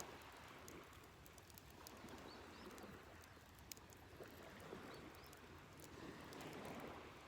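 Near silence: faint outdoor ambience with soft swells of noise, a few light clicks and a couple of tiny high chirps.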